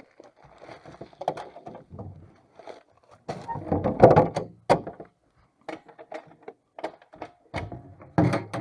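Irregular knocks and clattering of objects being moved about and bumped, with the busiest, loudest stretch about three to five seconds in and another burst near the end.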